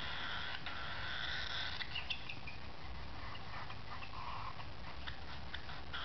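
Baby cockatiel chick making its raspy, machine-like begging buzz, the food-begging sound of a hand-fed chick waiting for its spoon. About two seconds in the buzz fades into a few short chirps and light clicks.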